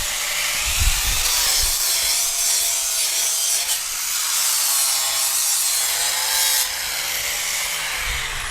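A surface being sanded: continuous, harsh abrasive rubbing with a faint whine underneath that wavers in pitch.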